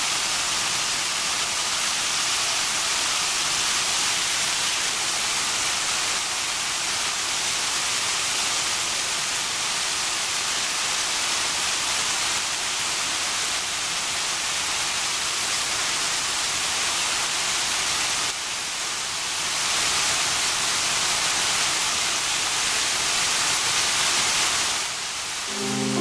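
Steady rush of splashing water from a fountain, an even hiss with no breaks.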